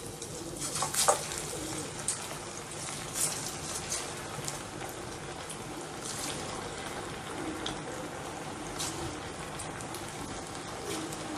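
Batter-coated chicken pakoras deep-frying in oil in a steel pan: a steady sizzling hiss with scattered pops and crackles. A few louder pops come about a second in, at about three seconds and near nine seconds.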